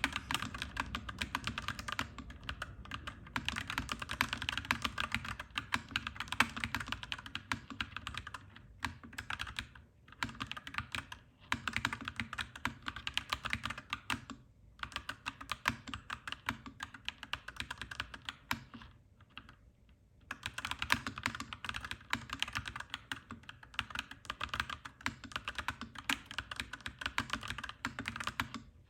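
Fast typing on a clacky mechanical keyboard, dense keystrokes in long runs with brief pauses, the longest about two-thirds of the way through.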